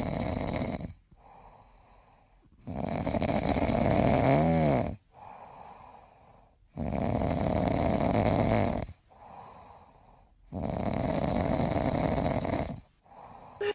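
A grey cat snoring in its sleep: four long, noisy snores about four seconds apart, with much quieter breaths between them.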